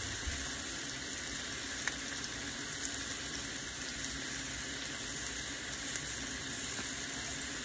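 Tomatoes, onion and zucchini flesh frying in oil in a pan on a gas stove: a steady sizzle, with a few faint ticks.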